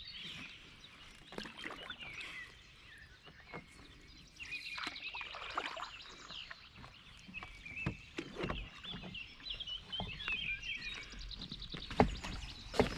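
Songbirds singing continuously, with the splashes and knocks of a kayak paddle. A sharp knock near the end is the loudest sound.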